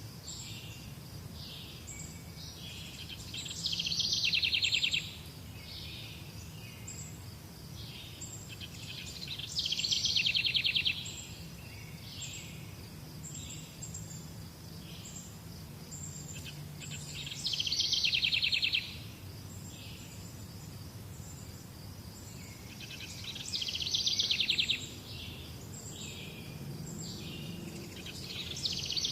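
Wild birds singing: one bird repeats a rapid, high trilled phrase about a second and a half long four times, roughly every six to seven seconds, with shorter chirps from other birds between, over a steady low background rumble.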